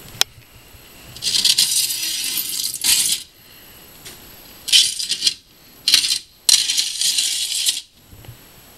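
Sliding glass doors of a reptile enclosure scraping and rattling in their track, in four harsh bursts: one long slide about a second in and three shorter ones near the end.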